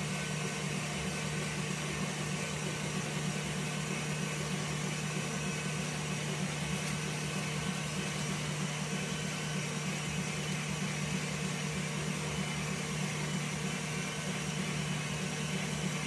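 KitchenAid stand mixer motor running steadily, its whisk beating meringue of egg whites and hot sugar syrup in a glass bowl, whipping it until it cools completely. A constant hum with no change in speed.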